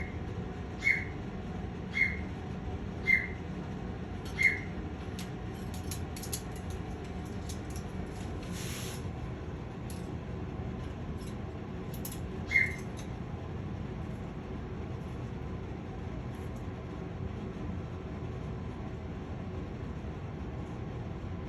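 A parrot giving short, high peeps, about one a second for the first few seconds and once more later, over a steady low hum, with a brief hiss near the middle.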